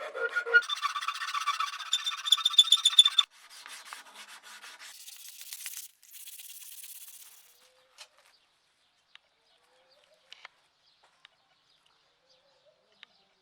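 Hand file or rasp scraping in quick back-and-forth strokes, with some squealing, in a few short clips that stop about seven seconds in. Then a few faint clicks.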